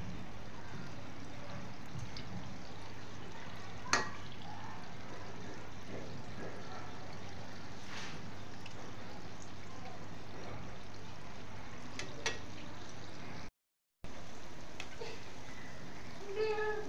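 Arisa pitha frying in hot oil in a steel kadhai, giving a steady sizzle. A slotted steel spoon clinks against the pan twice, about four seconds in and again about twelve seconds in.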